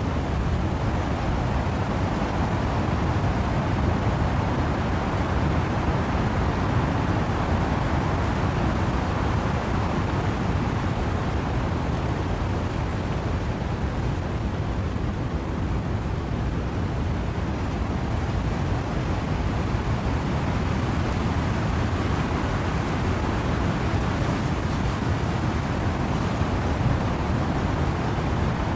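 Wind and rain in trees: a steady, even rushing noise, deepest in the lower range, with no separate gusts or drops standing out.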